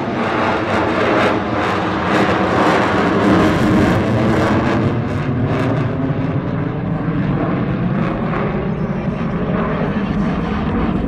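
Loud jet noise from the F-22 Raptor's twin Pratt & Whitney F119 turbofan engines, with a crackle in the first half. The high hiss fades after about halfway through.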